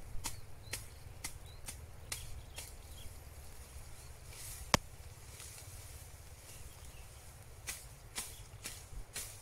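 Tall grass being cut by hand at a field edge: a series of sharp snips and snaps at irregular intervals, coming in clusters, with one much louder snap about halfway through. Faint bird chirps sound in the background.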